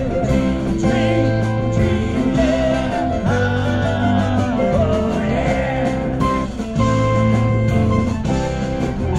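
Live band music: an instrumental passage with guitar and bass over drums, the guitar playing a bending melodic line.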